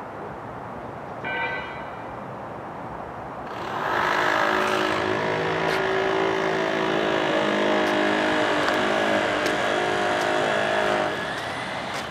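A motor engine running close by, swelling in about four seconds in and fading out near the end, with a brief high beep or chirp before it.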